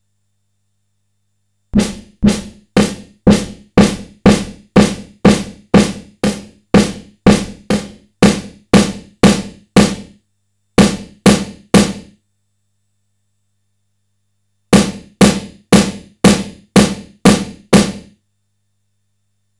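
Simmons SDS7 hybrid analog-digital electronic snare drum sound, triggered over and over at about two hits a second with a short reverb tail. The hits come in three runs: a long one, a short burst of three, then seven more. Between hits its filter bend setting is being raised, which shapes the filter sweep of each hit between dull and bright.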